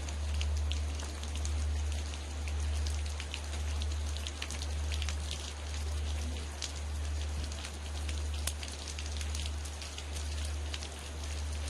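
Rain falling, with many small drop impacts. Under it is the low, wavering hum of a large Korean temple bell dying away between strokes, swelling and fading about once every second and a bit.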